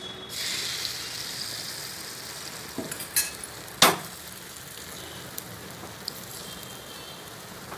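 Beaten egg poured onto a hot, ghee-greased tawa, starting to sizzle about a third of a second in and sizzling steadily on. A few sharp clinks of a spoon against the pan as the egg is spread, the loudest about four seconds in.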